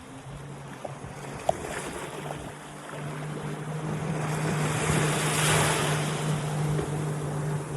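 Sea waves breaking on a shore: the surf swells from about three seconds in, peaks near the middle and then eases. A steady low hum runs underneath.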